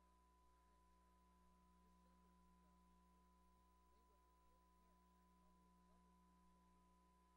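Near silence: a faint steady hum with a thin high tone, and no race sounds.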